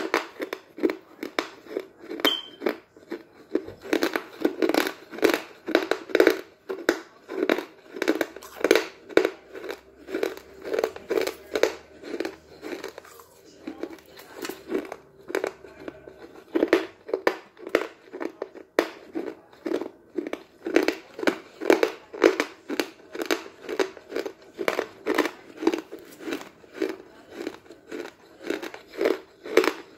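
Close-up crunching and chewing of pieces of chalk in the mouth, a steady rhythm of about two to three crunches a second, with a short pause about thirteen seconds in.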